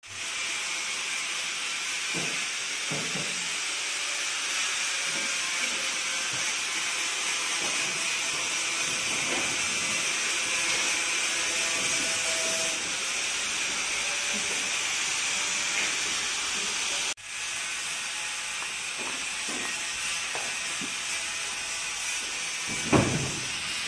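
Steady hiss of workshop background noise with faint voices here and there. It breaks off for an instant about two-thirds of the way through. Near the end comes a short loud call from a man, falling in pitch.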